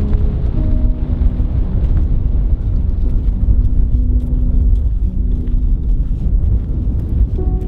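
Loud, steady low rumble of wind buffeting the microphone outdoors, with soft background music of held notes underneath.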